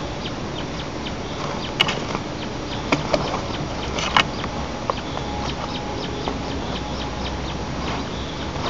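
An adult white-tailed eagle shifting its weight on its stick nest: a few sharp clicks and cracks of twigs under its feet, the loudest about 2 and 4 seconds in, over a steady outdoor hiss.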